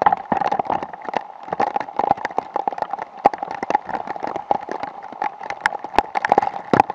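Heavy rain, large drops striking close to the microphone in an irregular patter of sharp taps, several a second, over a steady high hum.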